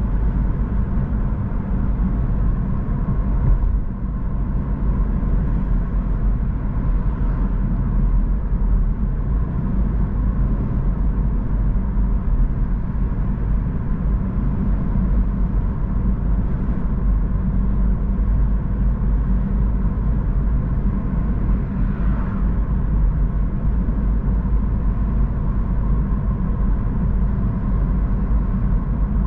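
A car driving at a steady speed on a wet road: a continuous low rumble of engine and tyre noise.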